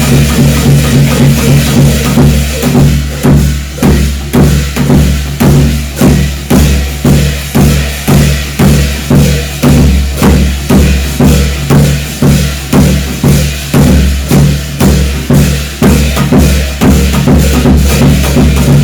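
Music with a steady drum beat of about two strokes a second over sustained low tones.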